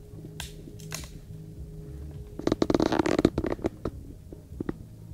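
Close rustling and crackling right at the camera's microphone, typical of handling noise, in a dense run of about a second and a half starting about two and a half seconds in, with a few stray clicks after, over a faint low hum.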